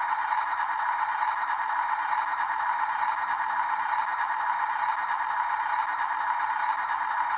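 Small electric gear motors of radio-controlled construction machines running steadily with a continuous rattle, with no separate knocks or changes in pace.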